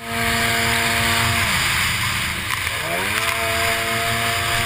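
A racing runabout jet ski's engine, heard from on board. It holds a steady high note, drops away about a second and a half in, then climbs back up and holds high again from about three seconds in, over a steady rush of wind and spray.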